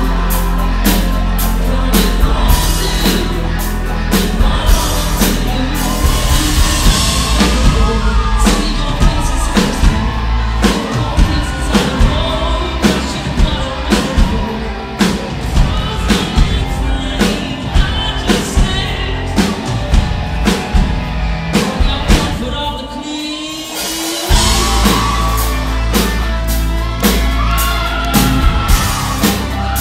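Live rock band playing, with lead vocals over drums, electric guitars and bass, recorded loud from within the audience. About 22 seconds in, the drums and bass drop out for a brief break before the full band comes back in.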